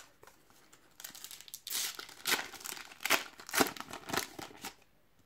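Foil trading-card sachet crinkling and tearing as it is ripped open by hand: a quick series of rips starting about a second in and stopping shortly before the end.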